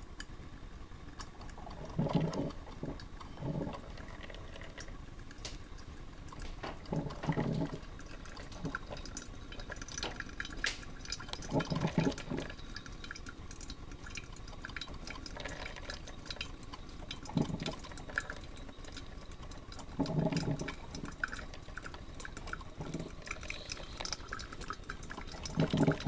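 Black & Decker drip coffee maker brewing: hot water sputtering and dripping into the glass carafe in a steady crackle, with a short low gurgle every few seconds.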